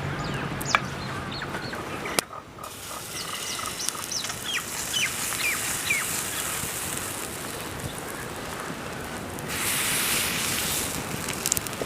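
Bird calls: a series of short chirps, each falling in pitch, a few seconds in. A burst of hiss follows near the end.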